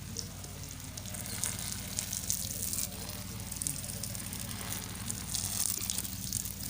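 Water splashing and pouring over pigeons being bathed, in uneven hissing surges, over a steady low hum.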